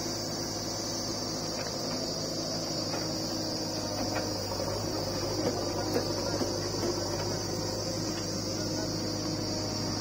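Diesel engine of a JCB 3DX backhoe loader running steadily while it digs and loads soil, with a few soft knocks near the middle, under a steady high-pitched insect drone.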